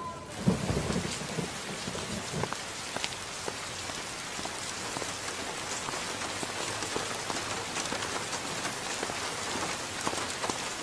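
Steady rain falling, with scattered sharp drop hits close by; it sets in abruptly just after the start.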